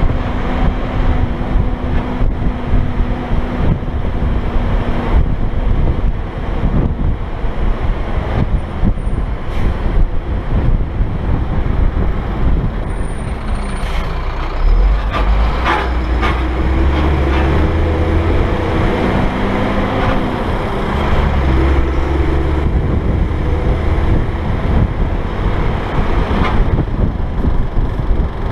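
Heavy dump truck driving along a highway, its engine running steadily under road and wind noise, heard from a camera mounted outside above the cab. A couple of short, sharp knocks come about halfway through.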